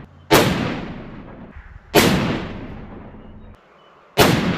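Three shots from a Savage .338 Lapua Magnum bolt-action rifle fitted with a tuner muzzle brake, each a sharp crack followed by a long fading echo. They come near the start, about two seconds in, and near the end.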